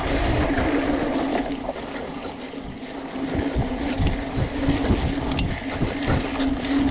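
Riding noise from a BMC Twostroke AL 2 hardtail mountain bike on dirt singletrack: tyres rolling and the bike rattling over bumps, with wind rushing over the microphone. It eases off about two seconds in and picks up again about four seconds in.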